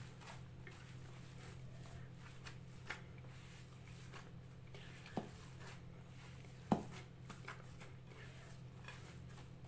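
Soft rustling and squishing of hands mixing shortbread dough in a bowl, with two sharp light knocks about a second and a half apart, over a steady low hum.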